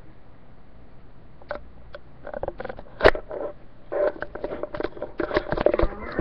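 A series of short clicks and taps, with one sharp knock about three seconds in and a thicker run of clicking and rubbing near the end.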